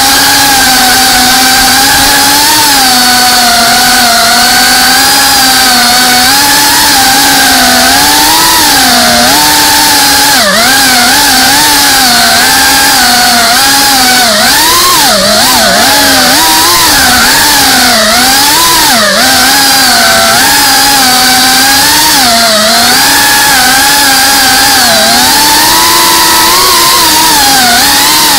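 FPV quadcopter's brushless motors and propellers whining, heard close from the drone's own onboard camera. The pitch swoops up and down quickly with the throttle, and the separate motor tones waver apart during the turns in the middle, over a steady hiss of prop wash and wind.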